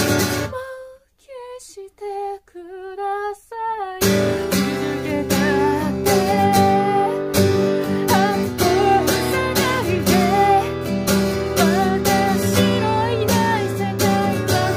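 Acoustic guitar strummed under a woman's singing voice. Just under a second in the guitar stops and the voice sings alone, then the strumming comes back in about four seconds in.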